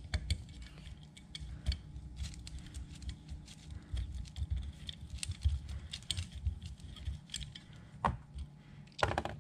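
Light, irregular metallic clicks and rattles of small screws and a bearing retainer plate being handled and lifted off a Ford 3G alternator's case, with a sharper click about eight seconds in.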